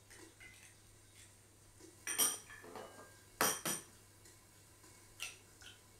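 Eggs being cracked on the rim of a glass measuring jug and dropped into the liquid inside: two sharp taps about two and three and a half seconds in, and a lighter one near the end.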